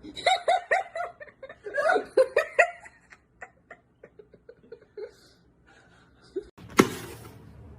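A person laughing in quick, choppy bursts that fade away after about three seconds. Near the end, a single sharp bang, the loudest sound here.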